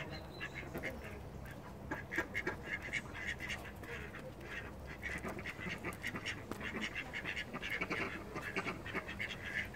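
Grey squirrel eating birdseed right at the microphone: a rapid run of crisp crunching clicks as it chews and cracks the seeds.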